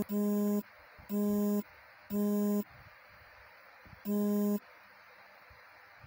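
A dog's squeaky toy squeaked four times as the dog bites it, each squeak a steady, even-pitched tone about half a second long, the last after a longer gap.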